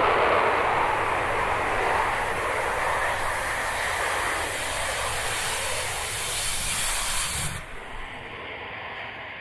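Honda reusable test rocket's engine exhaust during a powered vertical landing: a loud, steady rushing hiss. About seven and a half seconds in it cuts off suddenly at touchdown with a low thud, leaving a fading rumble.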